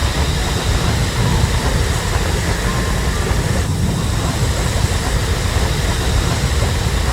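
Steady, loud rumbling roar with a heavy deep low end: a sustained rumble sound effect from an anime fight scene.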